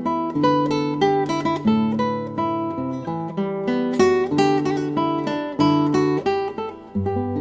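Background music led by acoustic guitar, plucked and strummed notes.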